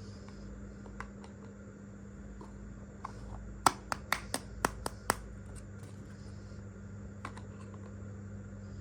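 Small hard pieces of a miniature toy kitchen set clicking as they are handled and set down: a single click about a second in, then a quick run of about seven sharp clicks midway, with a steady low hum underneath.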